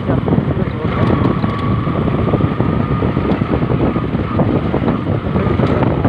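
Motorcycle engine running under way on a rough road, with wind buffeting the microphone. A faint steady high whine sits over it from about a second in until near the end.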